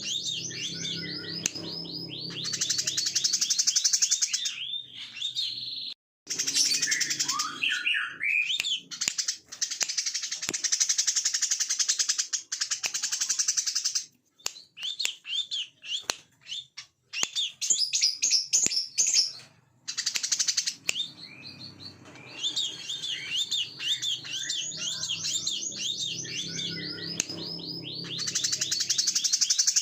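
Brown-throated sunbird singing a fast, sharp song of quick rising chirps and dense buzzing trills, broken by short pauses. About two-thirds of the way through, the same sequence of phrases starts over, as in a looped song-training (masteran) recording.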